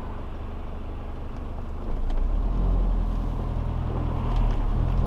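A vehicle engine running with a steady low hum, growing louder about two seconds in as it picks up.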